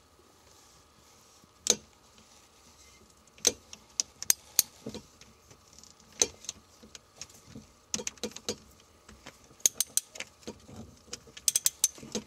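Ratcheting wrench clicking as it is worked back and forth on a nut, giving sharp single clicks and short irregular clusters of clicks.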